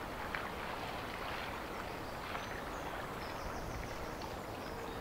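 Woodland ambience: a steady outdoor background hiss, with a few faint, high bird chirps a little past the middle.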